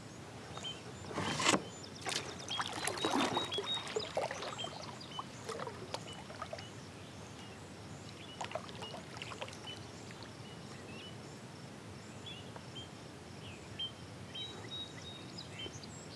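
Water lapping and splashing against a kayak hull, busiest and loudest in the first few seconds, with a few smaller slaps later. Faint short high chirps come and go throughout.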